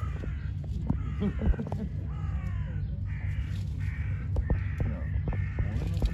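A run of short animal cries, one after another with falling pitch, over a steady low rumble.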